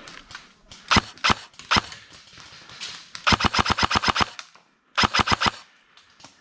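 Airsoft rifle firing: three single shots about a second in, then a fast burst of about ten shots, and after a short pause a shorter burst of about six.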